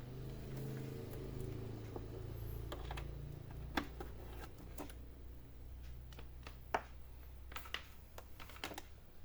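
Scattered light plastic clicks and taps as a mouse is plugged in and the all-in-one PC is handled and switched on, over a low steady hum that weakens near the end.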